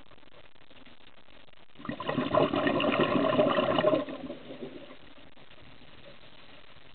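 Scuba regulator exhaust bubbles: a loud gurgling burst of exhaled air starting about two seconds in and lasting about two seconds, then fading. Under it runs a steady faint underwater hiss, recorded through the camera's waterproof housing.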